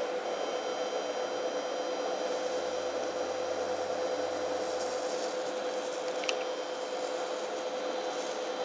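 TIG welding arc on mild steel, running steadily at about 100 amps while filler rod is fed into a tube-to-plate fillet weld: a constant hiss with a steady tone. One faint tick about six seconds in.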